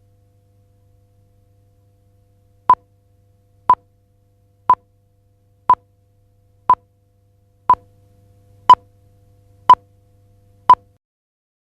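Nine short electronic beeps at one steady pitch, one each second, beginning a few seconds in, over a faint low hum.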